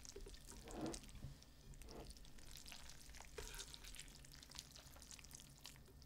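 Faint wet, crackly food-handling and eating sounds: noodles and meat being gathered into a wrap and chewed, with scattered soft clicks.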